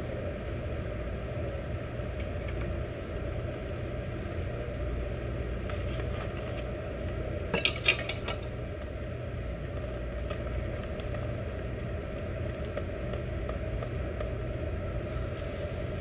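Steady low hum throughout, with a quick cluster of sharp clinks about halfway through as chopsticks knock against a ceramic dish.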